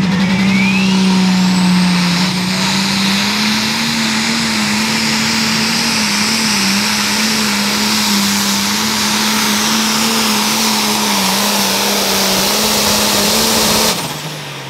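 International 1066 pulling tractor's turbocharged diesel engine at full throttle hauling the pulling sled, its turbo whine climbing in pitch over the first two seconds, then the engine note holding steady with a slight waver. Near the end the throttle comes off at the end of the pull and the sound drops suddenly.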